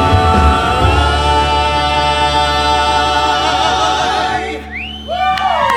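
A group of voices sings and holds a final chord over a steady low bass, and it dies away about four and a half seconds in. Near the end, several voices start sliding up and down in pitch.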